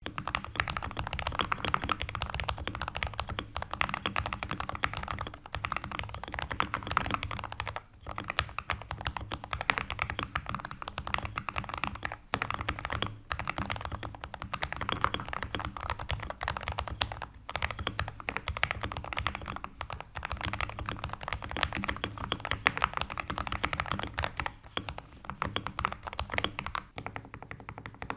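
Typing on a Wooting 80HE hall effect mechanical keyboard with Lekker L60 V2 magnetic switches in a PCR case: a dense, fast run of key clacks, with brief pauses about 8 and 12 seconds in.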